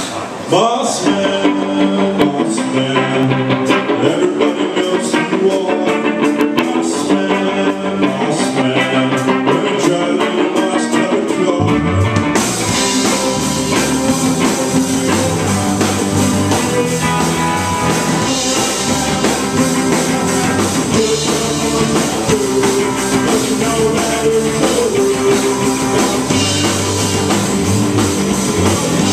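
Rock band playing live: a guitar-led intro with light, even drum clicks, then the bass and full drum kit with cymbals come in about twelve seconds in and the band plays on at full volume.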